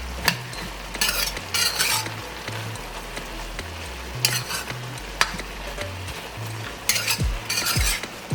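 Vegetables frying in a pot, stirred with a spoon in a few scraping strokes, with a couple of sharp knocks of the spoon against the pot. A faint bass line of background music runs underneath.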